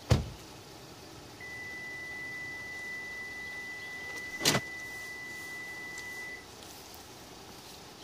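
A sharp click from the Kia K9's door as its outside door-handle smart button is pressed. Then a steady, high electronic beep about five seconds long, with a second sharp click in the middle of it.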